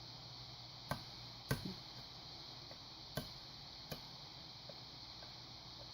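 Lock pick and tension wrench working in an 18-pin cross lock: four sharp metal clicks, the second the loudest, with a few fainter ticks, as tension is eased to reset an overset pin. A steady low hum and hiss sit underneath.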